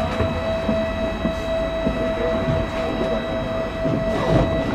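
Tram running, with a steady high-pitched electrical whine over a low rumble.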